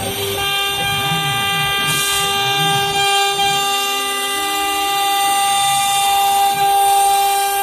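CNC wood router spindle whining steadily at full speed while its bit cuts a groove into an MDF board. Lower motor tones rise and fall as the gantry moves, and a short hiss comes about two seconds in.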